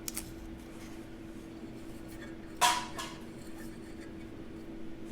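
Metal hand tools handled at a workbench: a small click at the start and one short, ringing metallic clink about two and a half seconds in, over a faint steady hum.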